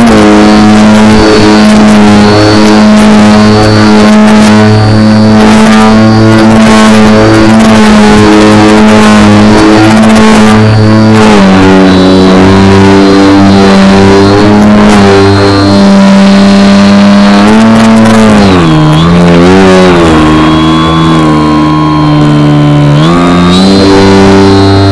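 Electric motor and propeller of an RC aerobatic plane, heard very loud and close from a camera on board. It holds a steady pitch for most of the stretch, then dips and wobbles with throttle changes after about 18 seconds, runs lower for a few seconds and rises again near the end.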